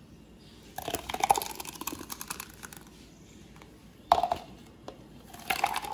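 Thick blended frappuccino pouring from a blender jar into a clear plastic cup in three spurts, spattering and crackling against the plastic.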